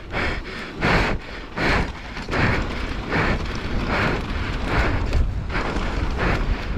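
A mountain-bike racer breathing rapidly and hard, about one breath every three-quarters of a second, over the steady low rumble of wind on the microphone and tyres rolling on a dirt trail.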